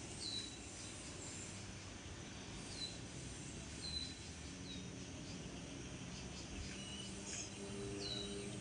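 Bird calls: short, high chirps that slide downward, one every second or two, with a faint low steady hum coming in about halfway through.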